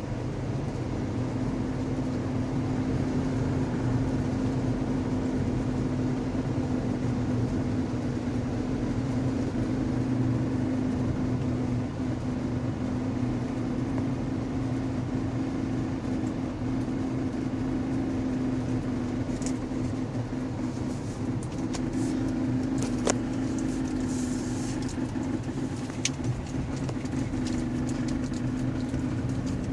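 Engine of a 2011 Hyundai Sonata 2.0 Turbo (turbocharged four-cylinder) running, with a steady droning tone. This is the strange intermittent noise the owner hears mostly with the A/C on, which seems to come from the passenger side of the engine. Several sharp clicks come in the last third.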